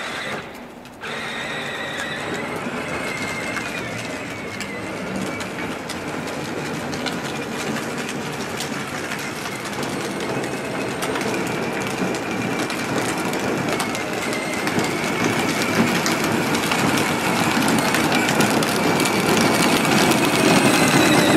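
Battery-powered John Deere Gator ride-on toy driving over asphalt: its electric drive motors whine and its hard plastic wheels rumble on the pavement, getting louder as it comes closer.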